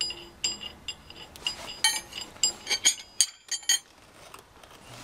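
Small steel parts being handled, clinking together in a run of light metallic clicks, each with a short high ring; the clinks come thickest in the middle and thin out near the end.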